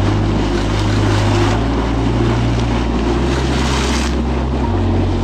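Background music with sustained low notes that shift every second or two, over a steady rushing noise.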